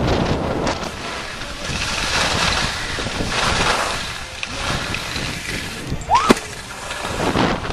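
Wind buffeting the microphone and skis hissing over groomed snow during a fast downhill run, swelling and fading in waves. About six seconds in, a brief high sound glides up and falls away.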